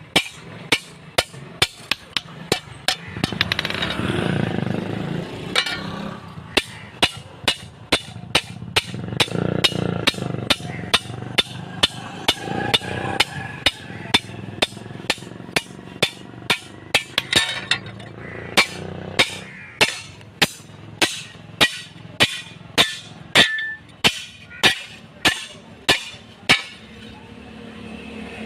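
Blacksmith's hammer striking metal on an anvil in a steady rhythm, about two sharp ringing blows a second.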